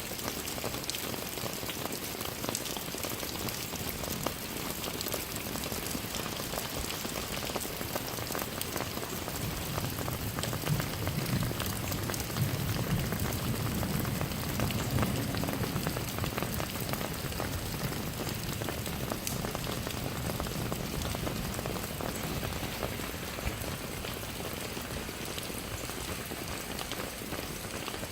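Steady rain falling, a dense patter of countless drops. A low rumble swells for several seconds near the middle, then fades back under the rain.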